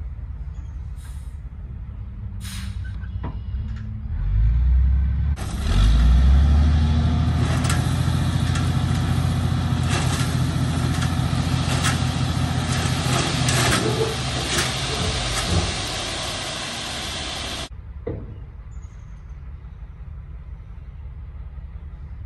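Heavy truck engine running and revving up, with a loud rushing, rattling noise for about twelve seconds that starts and stops abruptly.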